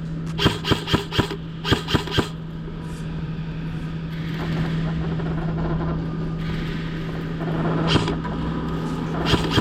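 Airsoft gun firing in quick single shots: four about a quarter second apart, then three more, then single shots near the end. A steady low hum runs underneath.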